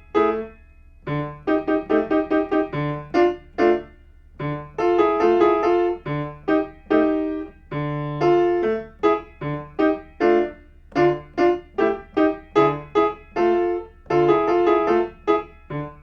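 Piano playing a spooky minor-key beginner piece, in short detached notes over a repeating low left-hand ostinato.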